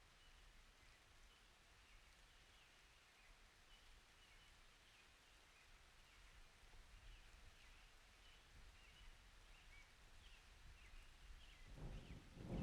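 Quiet summer outdoor ambience: faint bird chirps over a low distant rumble. Near the end, a roll of thunder starts to build.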